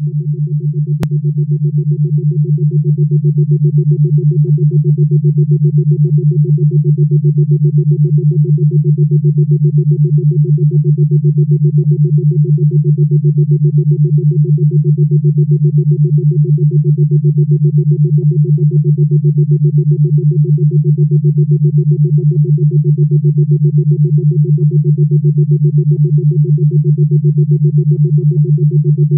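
A synthesized low drone: a steady tone with a fainter higher tone above it, pulsing quickly and evenly. It swells over the first few seconds and then holds level. There is a faint click about a second in.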